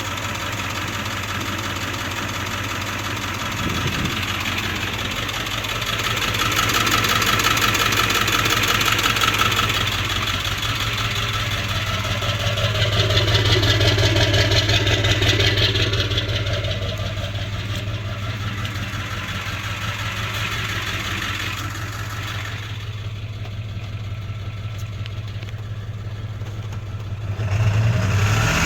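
1999 Ford Power Stroke 7.3-litre turbodiesel V8 idling roughly with a loping idle, its loudness swelling twice along the way. The owner reports this idle together with a check-engine light and has not found the cause, even after replacing the ICP sensor and fuel filter.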